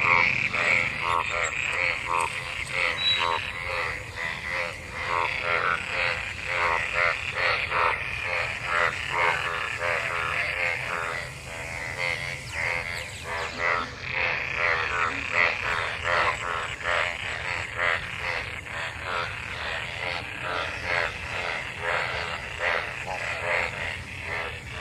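A chorus of many frogs calling together, overlapping croaks in rapid pulsing trains that run on without a break. These are breeding calls of frogs gathered in rainwater after monsoon rain.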